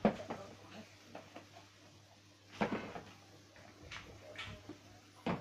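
Handling noises: three dull thumps or knocks, the loudest at the very start, one about halfway and one near the end, with small clicks and taps between, as things and a cardboard box are moved about on a carpeted floor.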